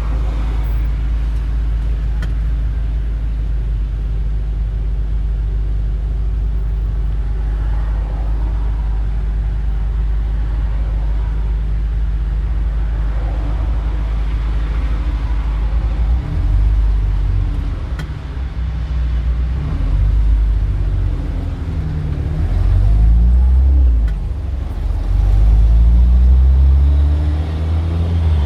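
Street traffic: a steady low engine rumble at first, then from about halfway through, engines of passing vehicles pulling away, their pitch rising and falling.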